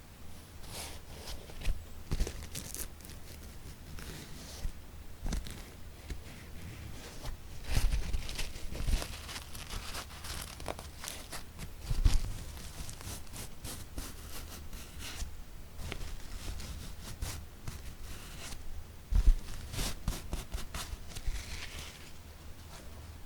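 Fingertips tapping and scratching on objects: quick, irregular taps with stretches of crinkly rustling, and a few heavier thumps, the loudest about 12 and 19 seconds in.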